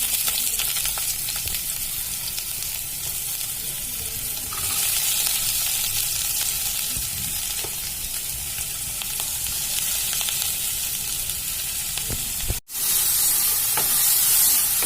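Sliced onions sizzling in hot oil in a frying pan, a steady hiss with faint clicks. The sizzle breaks off for a split second near the end.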